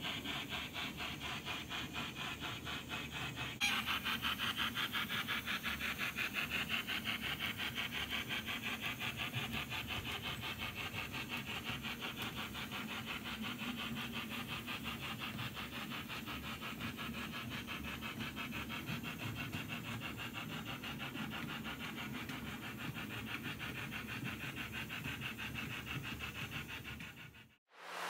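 H0-scale model train rolling along the track, a fast, even clicking rhythm from the running train. It gets a little louder after a few seconds and cuts off abruptly near the end.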